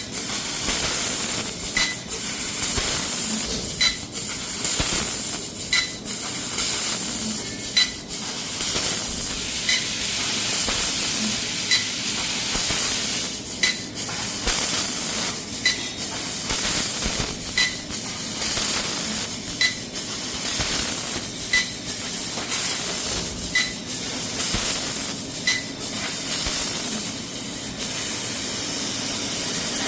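CNC laser cutting machine working 6 mm plate: a steady loud hiss of the cutting head's gas jet, with a short sharp click about every two seconds that stops near the end.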